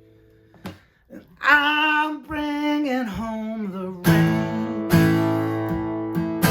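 Solo acoustic cover music: after a short pause, a long wordless sung note wavers and slides downward. From about four seconds in, the acoustic guitar comes back with loud strummed chords that ring between strokes.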